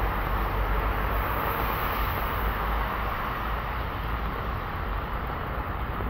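Steady hiss of rain falling on a street, with a low rumble underneath.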